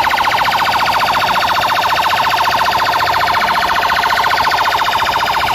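A fast, loud electronic siren warble, about ten pulses a second, played through a public-address horn loudspeaker. It cuts off suddenly near the end.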